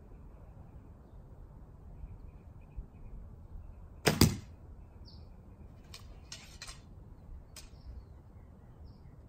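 A recurve bow with a silenced string is shot once about four seconds in: a sharp thump at the release, with a second knock right after it. A few light clicks follow as the next arrow is handled and nocked.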